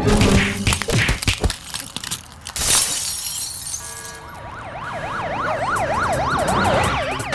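Cartoon sound effects: a run of clattering knocks and a crash with a glassy shatter, then a siren-like alarm wailing, its pitch swooping quickly up and down a few times a second.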